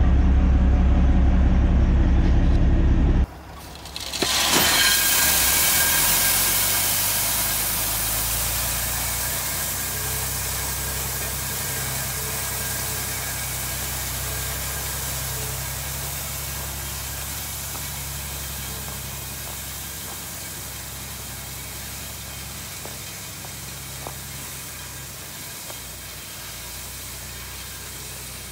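A Ford L8000 dump truck's engine idling close by, cut off abruptly about three seconds in. Then the truck's engine runs with a steady hiss, both fading slowly as it drives away tailgating gravel.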